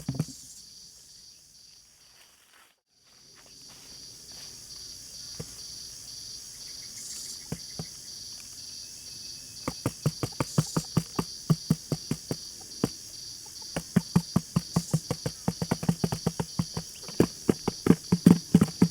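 Steady chirring of insects such as crickets, which briefly drops out near the start. From about ten seconds in, a quick run of taps or knocks comes over it, several a second and growing louder.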